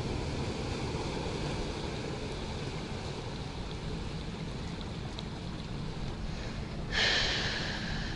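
A nearby motorboat's engine runs with a steady low hum under wind and water noise. About seven seconds in there is a sudden hiss lasting about a second, the loudest moment.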